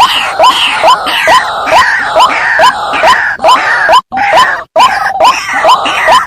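White-breasted waterhen (ruak-ruak) calls played as a hunter's lure: a fast, repeated series of short upward-sliding notes, about two to three a second, over harsher, higher croaking calls. The sound cuts out briefly twice in the second half, where the recording is spliced.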